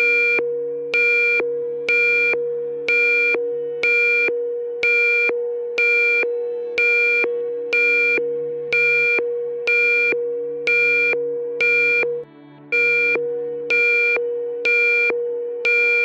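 Synthesized emergency-alert alarm: a beep repeating about once a second, each starting sharply and fading, over a continuous steady tone. The sound cuts out briefly about twelve seconds in.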